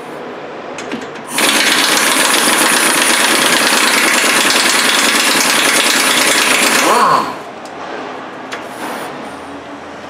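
Pneumatic impact wrench running for about six seconds, removing a skid plate bolt. It starts suddenly and cuts off about seven seconds in.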